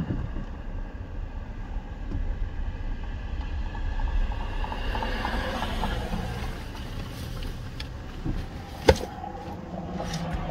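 A 2010 Toyota Prius driving along the road, a steady low rumble of tyre and road noise, with one sharp click about nine seconds in.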